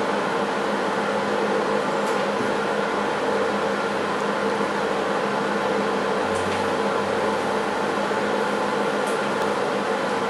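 Steady fan-like machine hum with faint tones running through it, and a few faint ticks.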